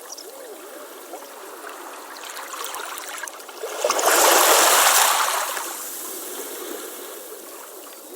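Ocean waves on a beach: a steady wash of water with a gurgling trickle. A wave breaks loudly about four seconds in, then fades as it washes back out.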